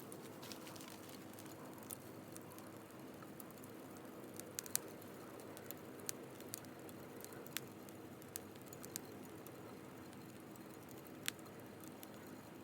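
Wood campfire burning with a faint steady hiss and scattered sharp crackles and pops, the loudest pops about five seconds in and again near eleven seconds.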